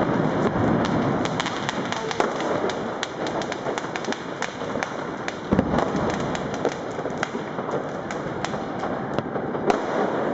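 Fireworks and firecrackers going off all around in dense, continuous crackling and popping, with two louder bangs, one about halfway through and one near the end.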